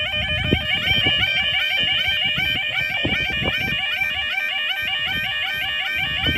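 Level crossing warning alarm sounding: a continuous warbling yelp that repeats rapidly, about four or five times a second, with some low rumbling noise underneath.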